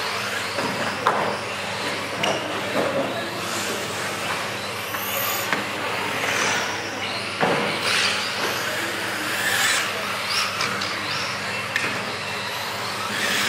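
Electric radio-controlled model cars lapping a carpet track in a hall. Their motors whine, rising and falling as they pass, over a constant tyre hiss, with a few sharp knocks from cars striking the track boards.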